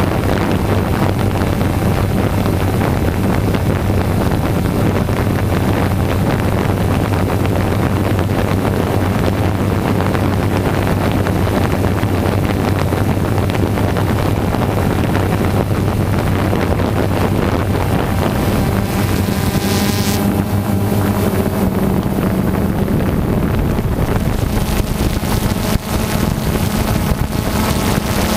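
Quadcopter drone's electric motors and propellers buzzing steadily, mixed with wind noise on the drone camera's own microphone. The hum shifts in pitch about two-thirds of the way in as the motors change speed.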